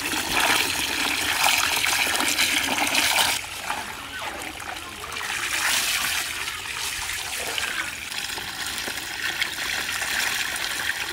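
Water from a hose pouring onto raw chicken pieces in a bamboo basket as they are washed by hand, splashing and draining out through the weave. It is louder for about the first three seconds, then drops to a softer trickle.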